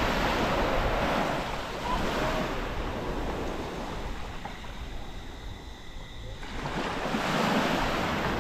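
Sea surf washing up the beach, with wind buffeting the microphone. The wash is strong at first, dies back about two-thirds of the way through, then builds again with the next wave near the end.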